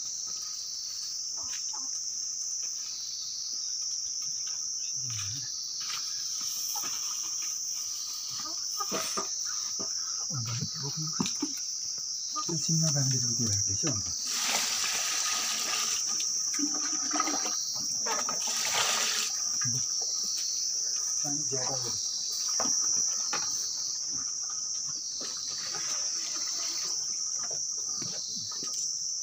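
Steady high-pitched chorus of insects, pulsing about once a second, with two short rushes of water near the middle.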